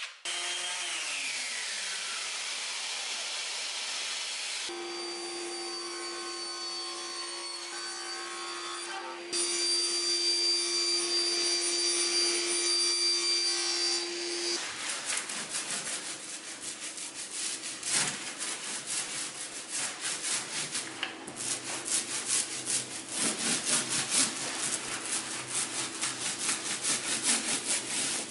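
Table saw sounds: a falling whine at the start, then the saw running with a steady hum and cutting through a plywood sheet. From about halfway, fast rhythmic rubbing strokes follow, as a roller spreads glue over a board.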